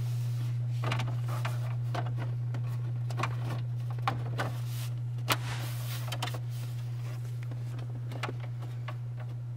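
Plastic interior trim panel being fitted and pushed into place, giving scattered sharp clicks and knocks of plastic on plastic, over a steady low hum.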